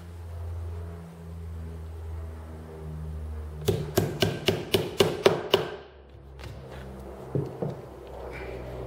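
Small hammer tapping a tack through stretched canvas into a wooden stretcher bar. It strikes about eight times in quick succession at roughly four a second, then twice more near the end.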